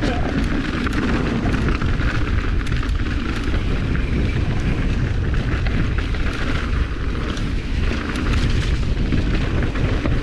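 Mountain bike rolling fast down a dirt trail, heard from a camera worn by the rider: a heavy rumble of wind buffeting the microphone, with rapid clicks and rattles from the bike and its tyres over rocks and ruts.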